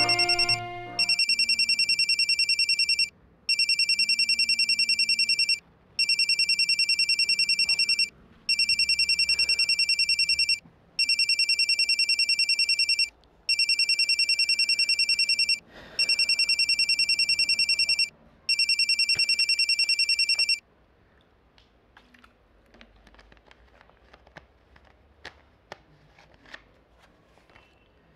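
Smartphone ringing with an incoming call: a fast-trilling electronic ringtone in repeated bursts of about two seconds with short gaps, which stops about two-thirds of the way through. After it stops there are only faint scattered clicks and taps.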